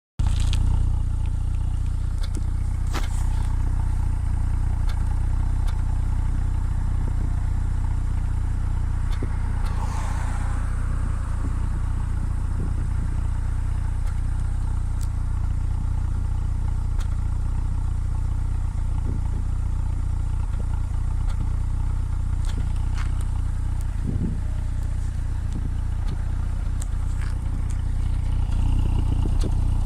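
2017 Ford Focus RS's 2.3-litre turbocharged four-cylinder running at a steady idle, with an occasional short puff or tick, a minor misfire that the owner links to the head gasket having recently been replaced.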